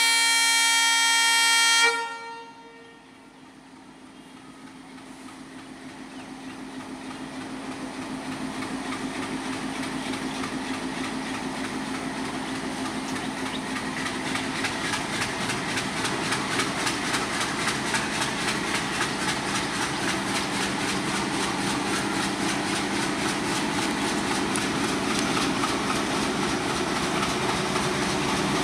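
A diesel locomotive's horn sounds in one loud blast that cuts off sharply about two seconds in. Then the locomotive's engine and the train's rumble grow steadily louder as the express approaches, with a regular clicking of wheels over the rail joints in the second half.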